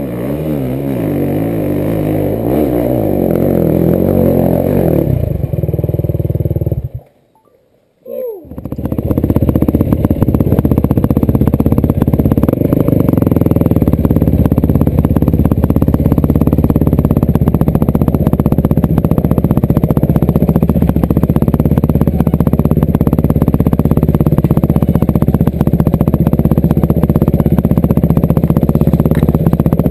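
Dirt-bike engines revving up and down for the first few seconds, then a sudden drop out about seven seconds in; after that, a Yamaha WR450F four-stroke single runs steadily under way, heard from the rider's own bike.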